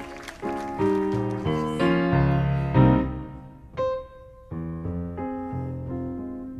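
Background music: a piano intro playing a slow run of chords, each struck and left to ring. A noisy hiss under the first chords fades out about two seconds in.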